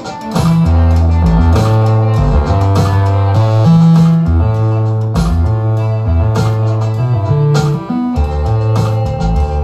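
Instrumental electronic-rock jam: electric guitars over a bass line and sampled drum beat. The full band comes in just after the start following a softer moment.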